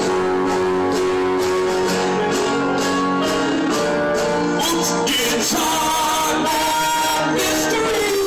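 Live band music: an acoustic guitar strummed along with keyboard and drums, and a man singing.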